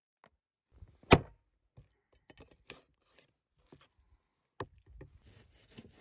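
A meat cleaver knocking on a wooden cutting board: one sharp, loud knock about a second in, then lighter scattered knocks and clicks. Near the end come the softer sounds of the blade cutting through raw beef.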